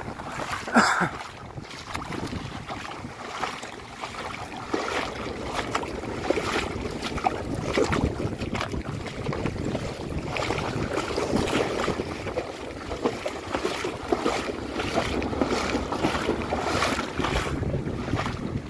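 Wind buffeting the microphone over small waves lapping at a stony shoreline, with a sharp knock about a second in.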